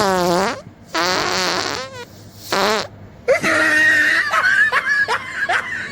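A series of prank fart noises. A falling one comes at the start, a longer wavering one about a second in and a short one near two and a half seconds, then a long sputtering one runs from a little past three seconds.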